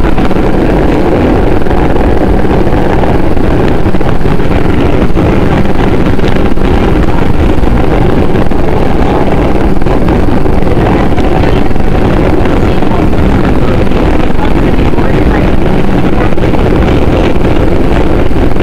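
New York City Subway 4 train running at speed through a tunnel, heard from inside the car: a loud, steady rumble of wheels on rails that does not let up.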